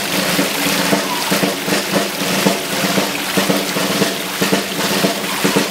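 Music led by drums: a busy snare and bass drum rhythm over held low notes.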